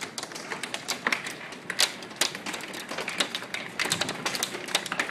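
Hailstones striking hard surfaces: an irregular patter of sharp clicks and taps over a steady hiss of falling hail.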